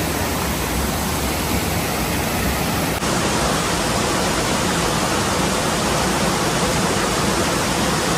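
Mountain creek rushing over rocks and small cascades: a steady, even rush of water, with a slight shift in tone about three seconds in.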